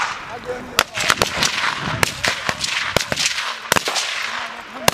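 Gunfire in a battle: a fast, irregular string of a dozen or more sharp shots, each trailing off in an echo, with men's voices calling in between.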